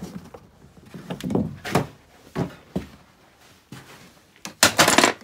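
Wooden shed door being opened, with a series of thunks and knocks, then a loud rough noise about half a second long near the end.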